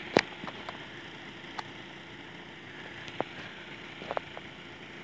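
Faint steady hiss with a few scattered sharp clicks and knocks, the loudest just after the start: handling noise from a phone camera being moved around.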